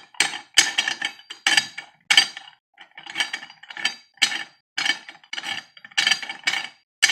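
Metal parts of a LEM meat grinder clinking and rattling together as the sausage stuffing tube is worked onto the grinder head, in a run of short clanks about twice a second.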